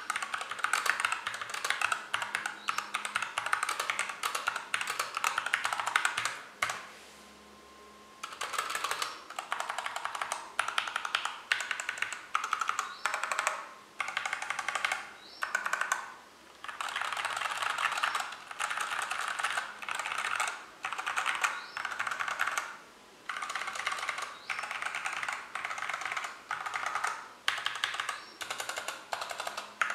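Fast typing on a Hexgears GK707 mechanical keyboard with Everglide Crystal Violet switches and thin double-shot ABS OEM-profile keycaps: a quick, continuous clatter of keystrokes. There is a pause of about two seconds roughly a quarter of the way in, and a few brief breaks later.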